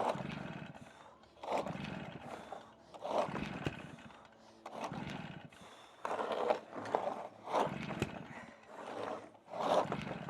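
Stihl BR380 backpack blower's two-stroke engine being pull-started over and over, about eight yanks of the recoil starter a second or two apart, turning over without catching: the old blower is hard-starting.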